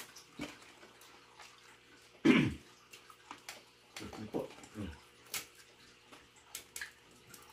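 Eating sounds at a table: scattered small clicks and wet smacks of chewing and of utensils on plates. About two seconds in there is a short, louder low vocal sound falling in pitch, like a hum or murmur, and a few softer ones a couple of seconds later.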